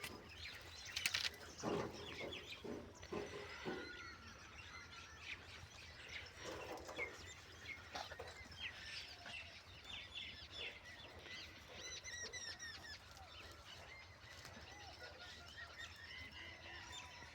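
Birds chirping and calling over and over, many short high chirps and trills, with a few lower animal calls in the first four seconds.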